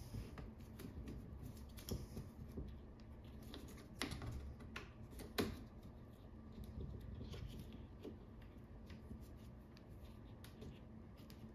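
Faint rustling and clicking as a folding chair's mesh seat fabric is handled and pulled over its front hook. A few sharper clicks stand out, the loudest about four and five and a half seconds in.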